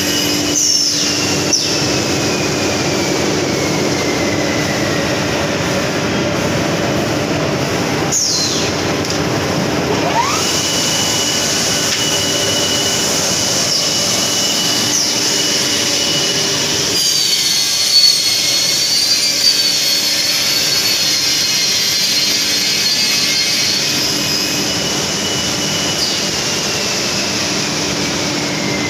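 Plywood double sizer machine running with its trimming saws cutting thick plywood: a loud steady machine noise with saw whines that fall in pitch several times, and one that rises about ten seconds in and holds steady for several seconds. A couple of brief knocks come a little past the middle.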